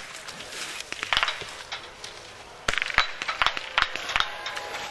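Small-calibre biathlon rifles firing on the range: a string of sharp cracks, sparse at first, then coming more often from a little under three seconds in.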